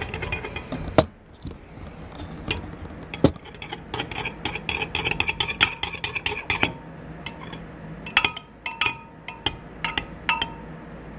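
A metal stirrer clinking and tapping against the inside of a glass measuring cup while mixing heated liquid plastisol, quick taps several a second through the middle, with a few harder knocks. Toward the end some strikes leave the glass ringing briefly.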